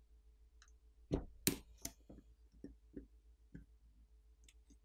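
A metal pry tool prying the plastic speaker-assembly cover of a Samsung Galaxy A11 loose, giving a string of sharp clicks and taps. The loudest two come about a second in, and fainter ones follow through the rest.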